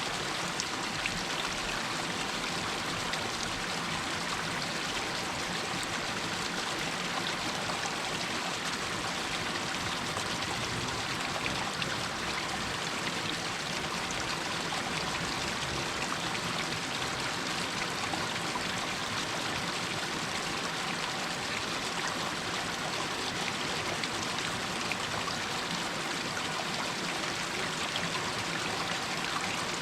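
Water running and trickling down over rocks in a small hillside stream: a steady rushing splash, brightest in the upper range, with small drips and splashes flecking it throughout.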